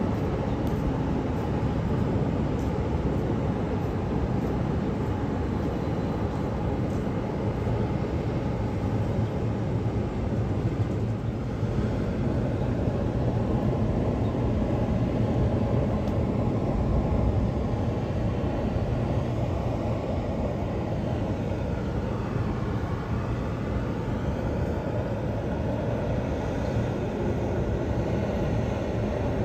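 Electric train running, a steady rumble throughout. Electric motor whine gliding down and up in pitch comes in during the last third.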